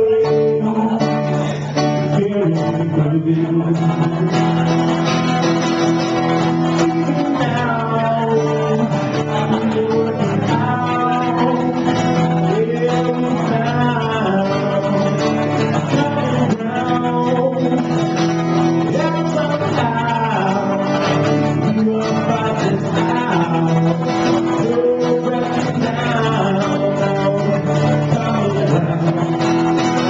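Acoustic guitar played with a man singing over it, a live solo song.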